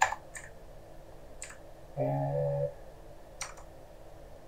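A few sharp keystrokes on a computer keyboard as code is typed, with a brief steady humming tone about two seconds in.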